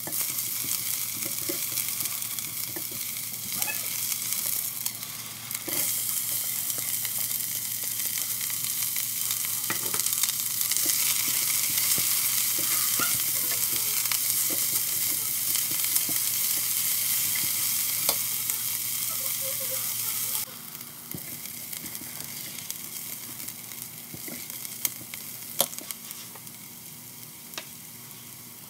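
Chopped onion, garlic and ginger sizzling as they fry in hot oil in a stainless steel pot, with the scrape and tap of a silicone spatula stirring them. The sizzle drops sharply about twenty seconds in and carries on quieter.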